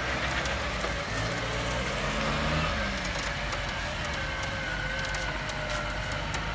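Off-road 4x4 engines idling steadily, with a faint wavering whine rising above them in the second half.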